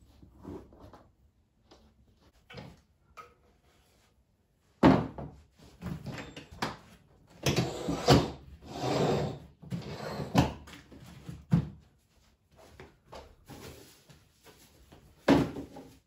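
Household furniture being moved about on the floor: a sharp knock about five seconds in, then a string of knocks and short scrapes, and another knock near the end.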